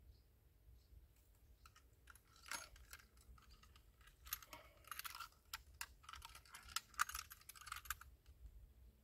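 A mesh fishing keepnet being gathered and handled: a run of quick dry clicks and crackles of the net from about two and a half seconds in until near the end, loudest in two spells.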